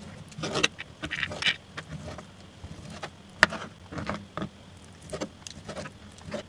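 Kitchen knife slicing raw chicken breast into strips on a plastic cutting board, with hands handling the meat: irregular taps and knocks of the blade and meat on the board, the sharpest about three and a half seconds in.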